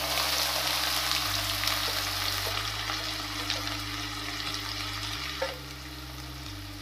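Onion dropped into hot ghee with tempered cumin in a kadai, sizzling hard at once and then slowly easing off, with a drop about five seconds in.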